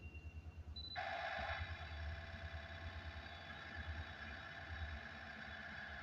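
Freight train wheels squealing on the rail: a high, steady squeal of several tones sets in suddenly about a second in and holds, over the low rumble of the train.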